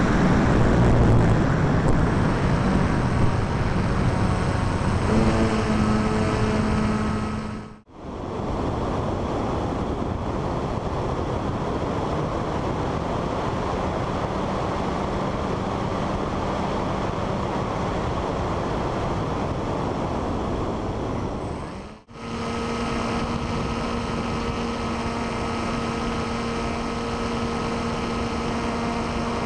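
Radio-controlled FPV plane in flight: wind rushing over the onboard microphone with a steady motor and propeller hum. The sound drops out briefly twice.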